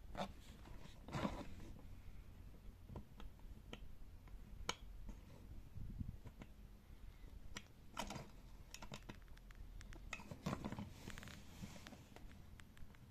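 Faint, scattered clicks of a suitcase's plastic three-dial combination lock as its number wheels are rolled a notch at a time with a fingertip, in an attempt to find the forgotten code.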